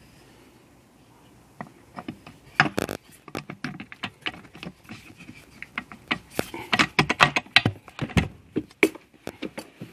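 Irregular clicks and clinks of small metal parts being handled and fitted by hand against an aluminium Honda Prelude manual transmission case, starting about one and a half seconds in and growing busier toward the end.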